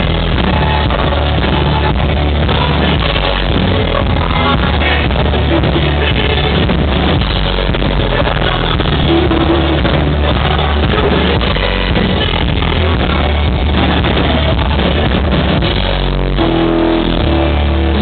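Live rock band playing loudly: electric guitar and drums, with the singer's vocals, heard from within the audience.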